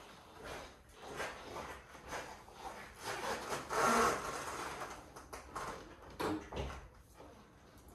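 Footsteps and rustling of riding clothes as a rider walks to a motorcycle and swings a leg over it, loudest about halfway through, followed by a dull thump a little after six seconds in as he settles onto the seat. The engine is not running.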